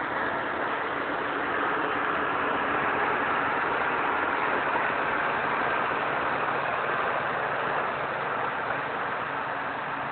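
Caterpillar 120G motor grader's diesel engine running steadily as the machine moves off, growing slightly fainter near the end.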